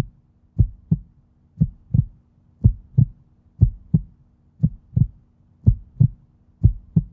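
Heartbeat sound effect: pairs of low thumps in a steady lub-dub rhythm, about one pair a second, over a faint steady low drone.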